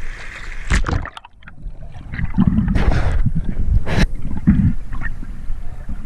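Sea water splashing and sloshing at the surface as a free-diver ducks under about a second in, then muffled underwater water noise with a few louder swishes.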